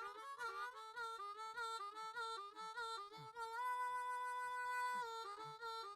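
Harmonica blues music: a harmonica playing short, bending phrases with a long held note in the middle.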